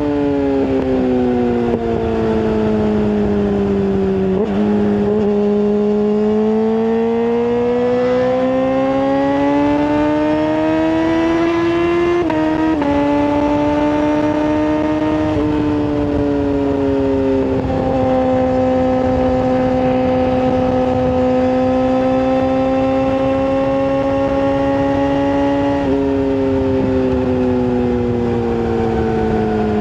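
Yamaha R6 sport bike's inline-four engine running through a full exhaust, a high, steady engine note. The pitch sinks over the first few seconds, climbs slowly for several seconds, then drops in several small steps and holds fairly level.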